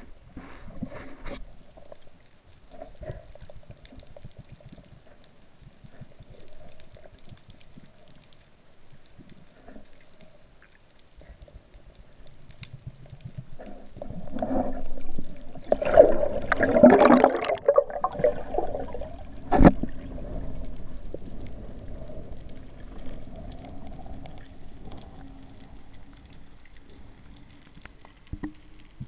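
Underwater water noise around the camera, a low gurgling wash that swells into a louder churning stretch about halfway through. A single sharp click comes a few seconds later.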